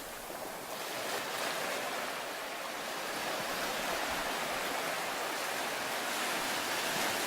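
Steady rushing noise with no distinct events, growing slightly louder over the first couple of seconds.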